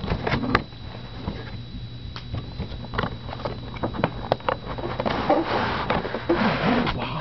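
Keyboard box being unboxed by hand: scattered knocks and taps on cardboard packaging, then a denser stretch of rustling packaging near the end.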